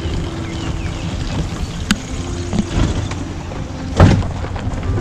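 Safari jeep driving slowly on a dirt forest track, its engine and body giving a steady low rumble. There are two sharp knocks, the louder about four seconds in.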